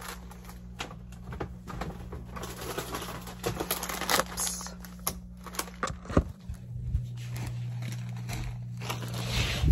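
A potato chip bag and a plastic-wrapped sleeve of crackers crinkling and rustling as they are picked up and handled, with small knocks from handling. A steady low hum sits underneath and grows louder partway through.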